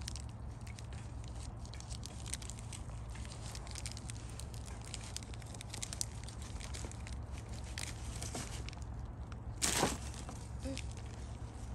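Packaging wrapper of a bagged bare-root raspberry plant crinkling as hands work it open along its crease, with one louder rip about ten seconds in as it tears open.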